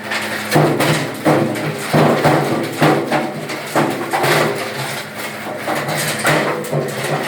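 Wood crusher machine running with a steady hum, and a burst of loud crunching about every second as wood is broken up.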